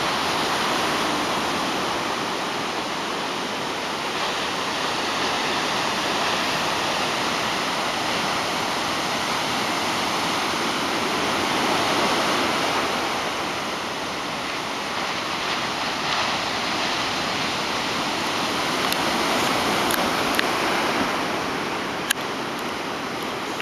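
Ocean surf washing onto a beach: a steady rush of breaking waves that swells and eases slowly. A few sharp clicks come near the end.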